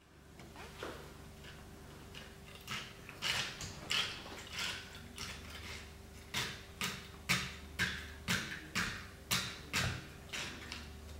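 A plastic straw stirred and jabbed through crushed ice in a glass mason jar: a run of short scraping clinks, about two a second, starting about three seconds in.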